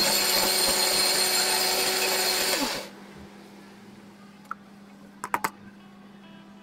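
Mixer grinder motor running with a steady whine while grinding soaked urad dal into batter in a steel jar. About three seconds in it is switched off and winds down, falling in pitch. A few sharp clicks of the jar and lid follow near the end.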